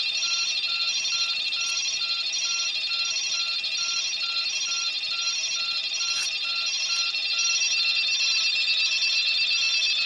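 A cluster of small solar-powered electronic sound devices giving out a dense chorus of high electronic tones and chirps, with short beeps repeating about twice a second.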